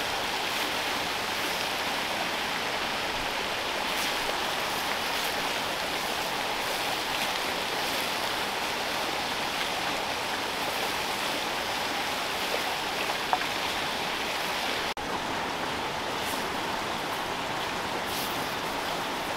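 Steady rushing of water flowing from a spring-fed stream, with a few faint ticks.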